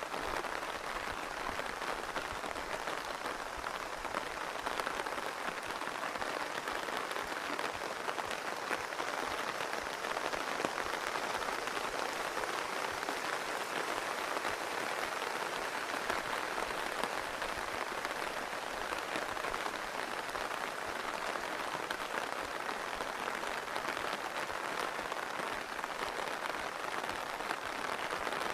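Rain falling steadily, an even, unbroken hiss of many drops.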